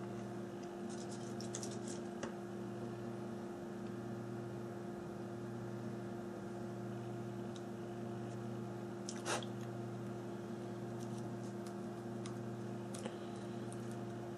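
Steady electrical hum with a few faint clicks and taps of small phone parts and tools being handled during reassembly. One sharper click comes about nine seconds in.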